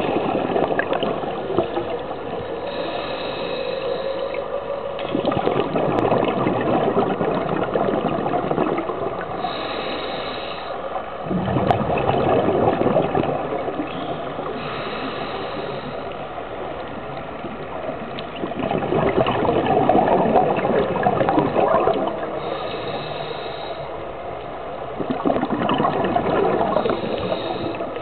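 A scuba diver breathing through a regulator underwater: a short hiss on each inhale, then a louder rush of exhaled bubbles, in a slow cycle about every six seconds.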